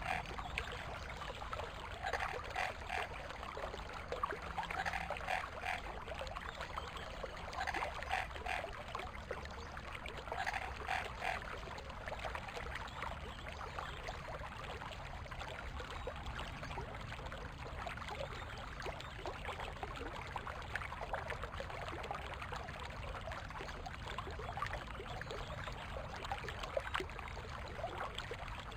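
Forest stream running steadily over stones. During the first half, a frog calls about every two to three seconds, each call a short quick series of pulses; the calls stop about halfway through, and the water carries on alone.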